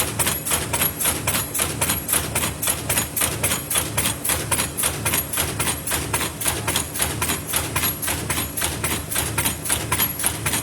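Paper lid making machine running, its press and forming strokes making a loud, regular clatter of several knocks a second.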